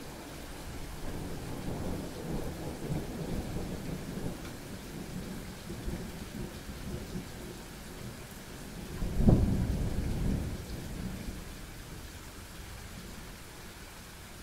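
Thunderstorm: steady rain with thunder rumbling through the first few seconds. About nine seconds in, a sudden, louder thunderclap cracks and rolls off over a couple of seconds, leaving the rain.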